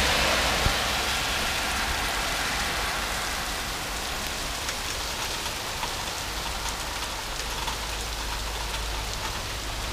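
Light rain falling steadily, an even hiss with scattered single drops ticking. It is slightly louder in the first couple of seconds, then holds level.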